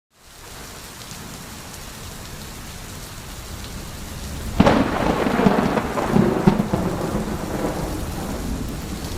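Steady rain falling, with a sudden clap of thunder about halfway through that rumbles on for a few seconds before fading back under the rain.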